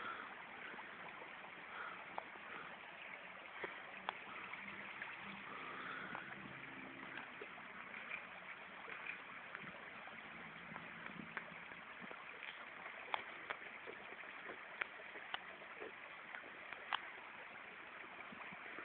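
Steady rush of flowing river water, with occasional short clicks and knocks.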